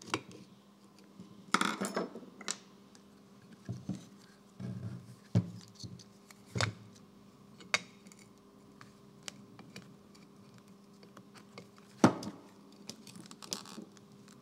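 Scattered metallic clicks, clinks and knocks of a screwdriver and small parts as a Fiat Dino wiper motor is taken apart on a workbench, with a short clatter about a second and a half in and a sharp knock about twelve seconds in. A faint steady hum runs underneath.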